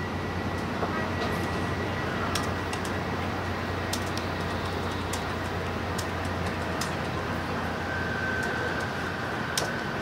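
Cabin running noise of an N700-series Shinkansen travelling at speed: a steady low rumble and rush of air, with a few faint sharp clicks.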